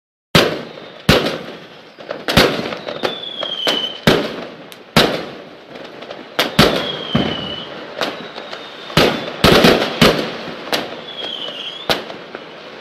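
Fireworks going off, about a dozen sharp bangs starting a moment in, each trailing off in crackle. Three short whistles glide down in pitch between them.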